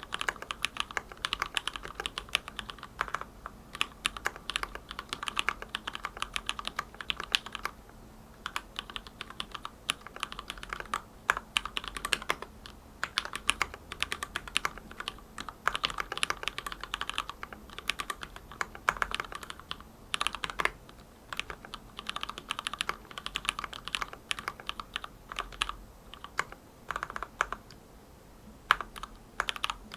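Typing on a hand-wired Aroz65 mechanical keyboard with Gateron Milky Black linear switches lubed with Krytox 205g0, in a stacked acrylic sandwich case. Keystrokes clack in quick continuous runs, with brief pauses.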